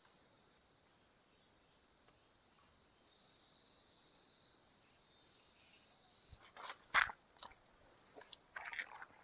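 Steady high-pitched drone of insects, with a few sharp clicks and knocks near the end.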